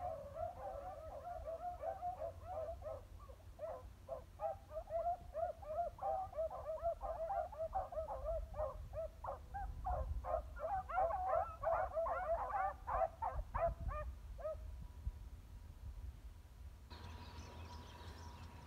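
A pack of beagles baying on a scent trail: many overlapping yelping cries in quick succession, growing louder and denser before stopping abruptly about three quarters of the way through.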